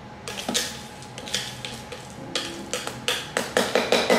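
Ice cubes clinking and knocking into a glass blender jar as they are put in a few at a time, coming faster, several a second, near the end.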